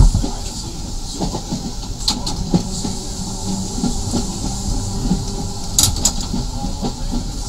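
The 1934 tram Nesa 929 running along its track, with steady running noise and irregular knocks and rattles from the wheels and car body. A loud jolt comes right at the start, and two short sharp clacks come about two and six seconds in.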